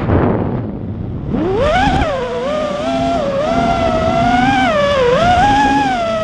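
FPV racing quadcopter's motors and propellers whining. The pitch drops away right at the start, climbs back about a second and a half in, then wavers up and down with the throttle.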